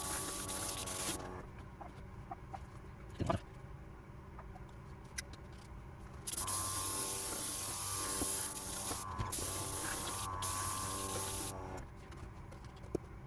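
Small airbrush compressor running with a humming motor while the airbrush sprays with a steady air hiss. It stops about a second in, starts again around six seconds, and stops again shortly before the end.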